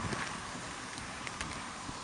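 Train rumble dying away as the train draws off, with a few faint clicks, under wind noise on the microphone.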